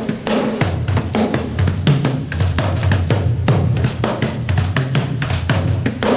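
Music with a drum kit playing a steady beat, kick and snare strokes over a sustained bass line.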